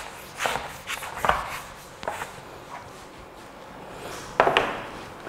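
Whiteboard eraser wiping across a whiteboard in a few short, hissing strokes.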